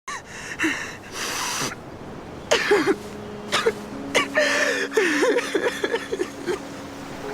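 Animated TV show soundtrack: short wordless vocal sounds with swooping pitch and a few noisy bursts, over held background music notes.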